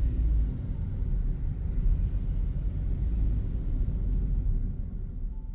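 Steady low rumble of engine and tyre noise inside a moving car's cabin, beginning to fade near the end.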